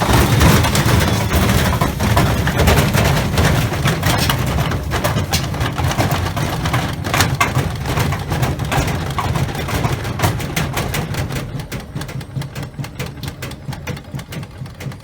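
Washing machine on a fast spin with a heavy loose object in the drum, its motor running under a rapid, continuous clatter of banging. In the last few seconds the knocks thin out and get quieter as the drum slows down.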